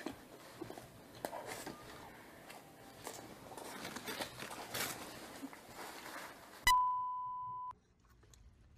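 Faint rustling and small clicks, then about two-thirds of the way in a sudden loud electronic beep: one steady tone lasting about a second that fades slightly and cuts off abruptly.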